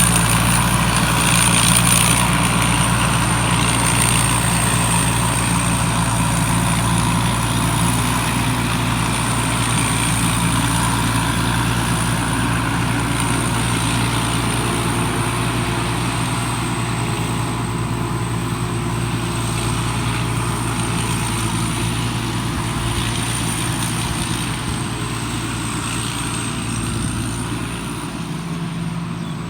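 Small combine harvester's engine running steadily, with a thin high whine above it; the sound slowly gets quieter toward the end.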